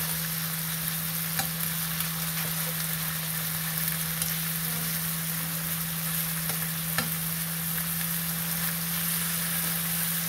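Kimchi sizzling steadily as it is stir-fried in a nonstick wok, stirred with metal tongs that click against the pan a couple of times. A steady low hum runs underneath.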